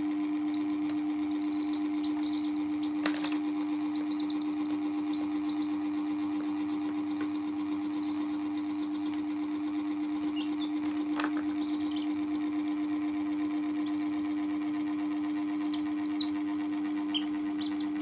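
Domestic chicks peeping: runs of short, high calls, each falling in pitch, over a steady low hum, with a couple of light clicks, about 3 and 11 seconds in.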